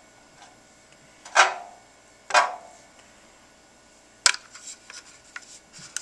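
Clicks and knocks from handling a smoke detector and its 9-volt battery while the battery is being swapped: two knocks with a short ringing tail about a second apart, a sharp click a little past the middle, then light fiddling clicks near the end.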